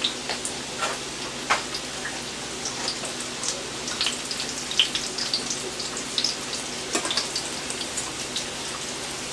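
Floured, egg-washed sheepshead fish fingers frying in hot oil in a skillet: a steady sizzle with scattered crackles and pops.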